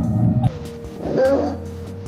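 Background music with held notes that slide down about half a second in, with two short rough sounds, one at the start and one about a second in.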